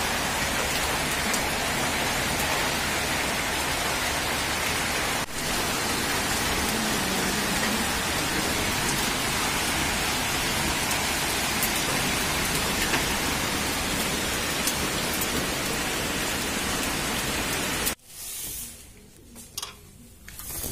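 Heavy rain and hail pelting an open balcony: a dense, steady hiss with scattered sharp ticks of hailstones. It cuts off abruptly near the end, leaving a quiet room with a few light knocks.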